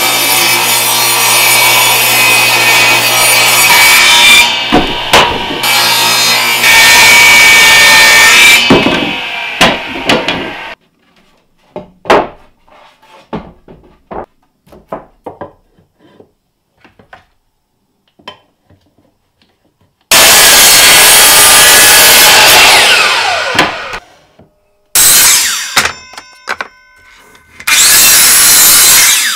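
A table saw runs and rips a wooden board, with a steady low motor hum under the cutting noise. Then come scattered knocks of boards being handled, and near the end a miter saw makes three bursts of cutting, its blade whining down in pitch after one of them.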